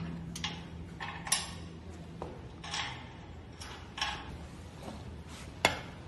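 Metal clinks and knocks from a swivel caster wheel and its steel mounting plate being handled against a steel machine frame, with short scraping sounds in between. The sharpest knock comes near the end.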